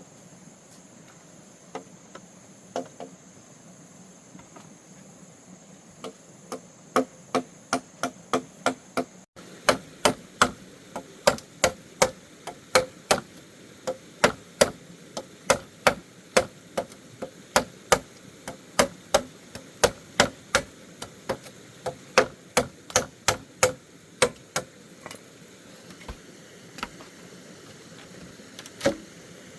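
Blows of a hand tool striking bamboo, a few scattered ones at first, then a steady run of sharp strokes from about six seconds in, roughly two a second.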